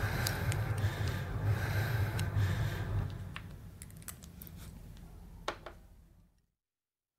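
A dense, noisy rumble with a hiss over it fades out about three seconds in. A few sharp, separate scrapes of a metal fork on a glossy photographic print follow, the sharpest about five and a half seconds in. The sound then cuts to dead silence near the end.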